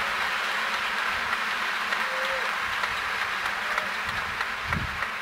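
A swarm of small multirotor drones flying overhead, their many propellers blending into a steady, even buzz.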